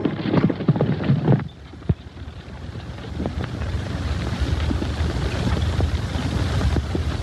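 Horse hoofbeats for about the first second and a half, cutting off abruptly, then a steady low rumble with hiss.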